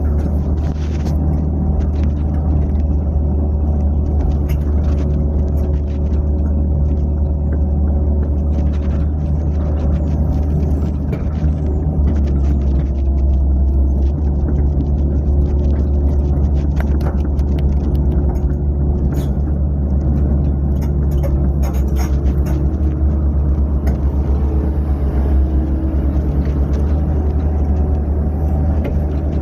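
Excavator's diesel engine running steadily, heard from inside the operator's cab, with scattered light clicks and clanks over the low rumble.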